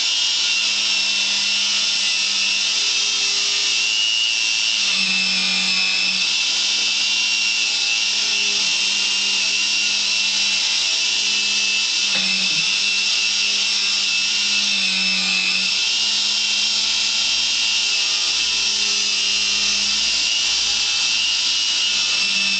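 Restored B-25 tail turret's drive motors running steadily as the turret is operated, a machine whine that dips in pitch briefly about five seconds in and again about fifteen seconds in. The turret is working.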